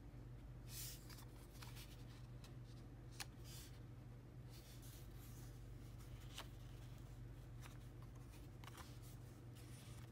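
Printed paper photocards being handled, slid and laid on the pages of a paper notebook: soft, intermittent paper rustles with a light sharp tick about three seconds in and another about six seconds in, over a steady low hum.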